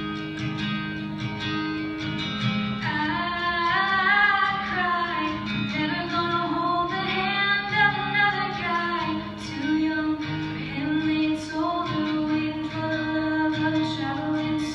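A girl singing a slow ballad to strummed guitar chords; the guitar plays alone at first and her voice comes in about three seconds in, holding notes with vibrato.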